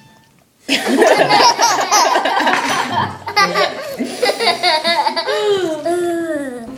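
Loud, hearty laughter, starting just under a second in and running for about six seconds, trailing off in long falling laughs near the end.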